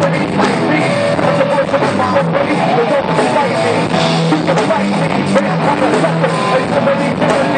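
Rock band playing live and loud: electric guitar over a drum kit, with no break.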